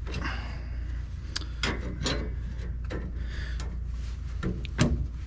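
Angle iron being worked into the coils of a pinsetter pit hinge spring: a string of metal clinks and scrapes, the loudest near the end, over a steady low hum.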